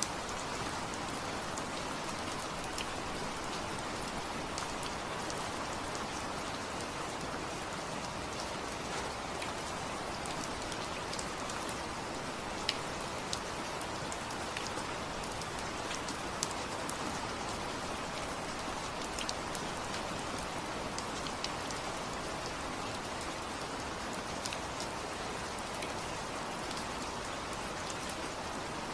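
Steady rain falling, a dense even hiss with scattered sharper drips and drop impacts standing out here and there.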